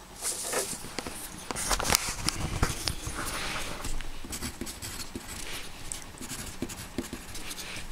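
Pencil scratching on paper as figures are written in, among clicks and knocks of a plastic protractor and the paper being handled.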